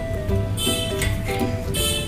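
Background music: a pop track with a melody of held notes over a steady low beat, and two short bright swishes about a second apart.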